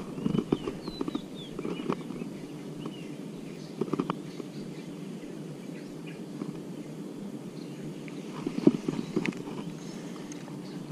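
Scattered light clicks and knocks from a baitcasting rod and reel being handled and cranked during a lure retrieve, over steady open-air background noise. A few faint bird chirps come about a second in.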